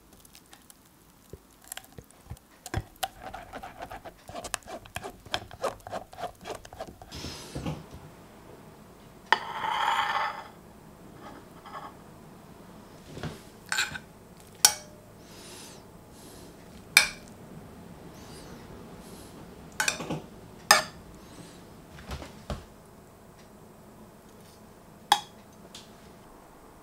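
Kitchen utensil sounds: a spatula working red pepper purée through a fine mesh sieve over a glass bowl, in a run of quick scrapes and taps. About ten seconds in comes a brief louder scrape, then single clinks of a metal spoon against a pan and a ceramic plate as roasted vegetables are plated.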